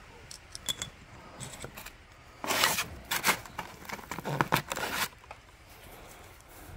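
A tapered roller pinion bearing, its bore sanded out to make a slip-fit dummy bearing for setting pinion depth, slid by hand on a Ford 8.8 pinion gear's shaft. A few light metal clicks come first, then about three seconds of scraping and rattling in the middle as it slides down the shaft.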